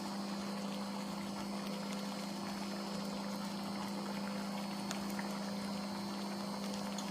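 Philips Pasta Maker's motor running with a steady hum as its paddle mixes the flour, while water is poured into it through the slotted lid.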